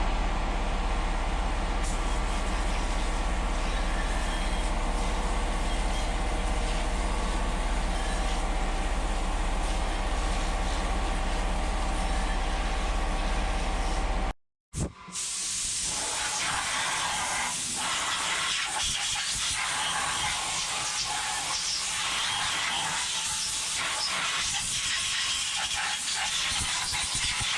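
Wet-blasting (hydroblasting) equipment cleaning a motorcycle cylinder head: a steady hiss of the blast with a constant machine hum under it. After a short break about halfway, the hiss is brighter and uneven as the nozzle works over the part.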